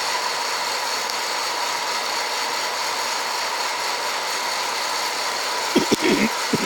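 Hot-air coffee roaster running steadily, its fan and heater blowing air through the tumbling coffee beans mid-roast. A few brief knocks come near the end.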